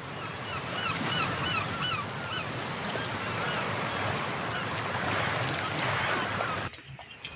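Heavy rain falling, a dense steady hiss, with an animal's short calls repeating several times a second in the first two seconds and again around five seconds in. The rain sound drops away abruptly near the end.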